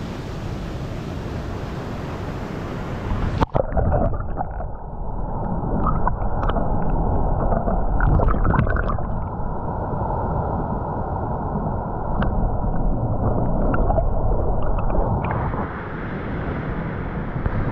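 Rushing stream water over rapids. About three and a half seconds in the sound turns muffled and gurgling as the microphone goes under the water, with scattered bubbly clicks. Near the end it brightens again as the microphone comes back up.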